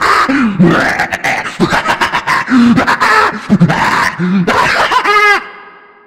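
Loud meme screaming: human voices yelling, groaning and laughing in quick succession. About five seconds in comes a high-pitched scream that cuts off abruptly.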